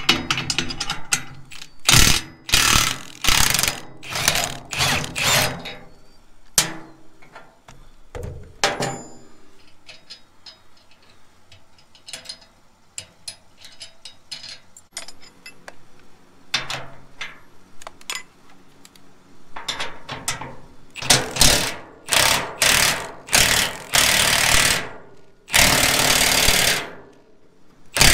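Cordless impact wrench hammering on a bush hog frame bolt in a series of short bursts, then again near the end with one longer burst, with quieter metal clinks and knocks of tools and parts in between. The bolt is seized and will not break loose under the impact wrench.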